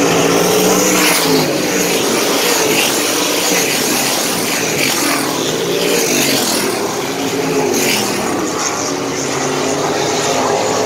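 A pack of winged sprint cars racing on a dirt oval, several V8 engines at once rising and falling in pitch as they throttle through the turns and down the straights.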